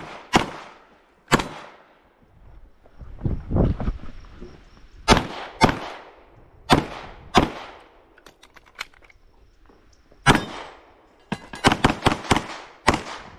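Pistol shots, loud and sharp: two single shots, then pairs about half a second apart with pauses of a few seconds between, ending in a fast string of about six shots near the end.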